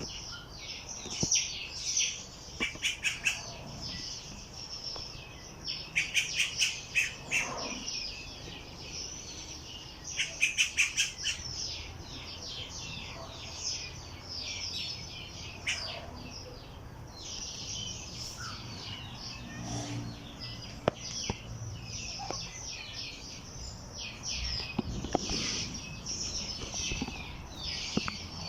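Several wild birds chirping and singing over one another, with three loud bursts of fast repeated notes a few seconds apart in the first half.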